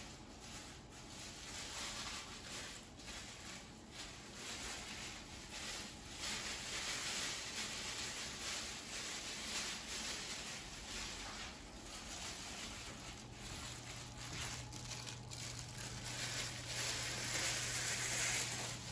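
Soft, uneven rustling of disposable plastic gloves and squishing of raw ground turkey as hands roll meatballs and set them on a baking sheet.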